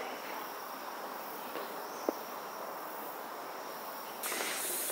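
Steady chorus of insects chirring in a bamboo forest, growing louder and fuller about four seconds in, with a single short tick about two seconds in.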